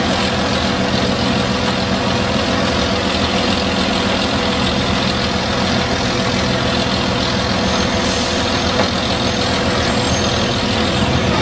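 Heavy truck's diesel engine running steadily, under an even, dense road noise.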